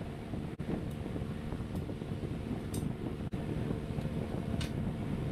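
Steady whirring mechanical hum, fan-like, with a few brief light metallic clinks of a wrench working on the golf cart's front-suspension bolts. The sound breaks off for an instant twice where the footage is cut.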